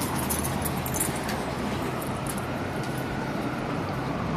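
Steady city street background noise with traffic.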